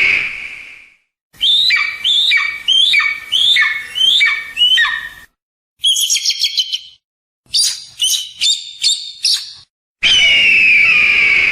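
Hawk calls: a long, harsh scream that falls slightly in pitch and fades, then a run of about seven sharp downslurred notes, a fast chatter, and a series of short clipped notes. The long scream comes again near the end. The calls start and stop abruptly.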